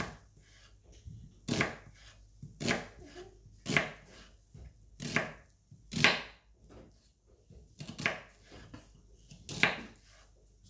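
Kitchen knife slicing a red onion on a wooden cutting board: about eight sharp knife strikes on the board, unevenly spaced roughly a second apart, with fainter cuts between.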